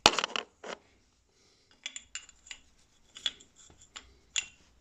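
Light metallic clicks and scrapes of brake pads being worked into a motorcycle front brake caliper by hand. A sharp knock comes right at the start, then scattered short clicks.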